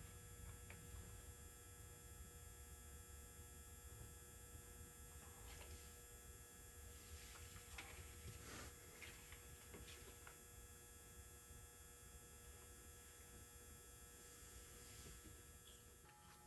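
Near silence: a low steady hum with a few faint light clicks.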